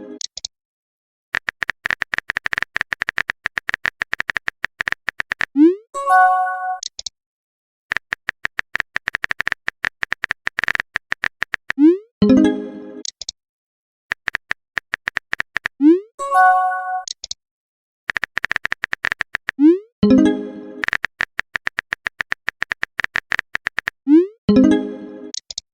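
Phone-keyboard typing sound effect, runs of rapid even clicks, each run ending in a short rising swoosh and a chime as a text message is sent or received. The pattern repeats about every four seconds, several times over.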